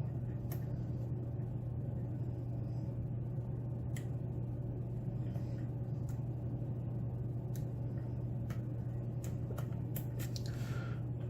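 Scattered faint clicks of a lock pick tapping and probing the pins inside a pin-tumbler challenge lock, a few clicks spread irregularly over several seconds, under a steady low hum.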